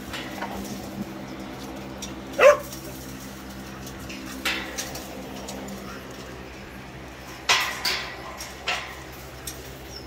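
A dog gives one short cry about two and a half seconds in, and a wire kennel gate clatters a few times later on, over a steady low hum.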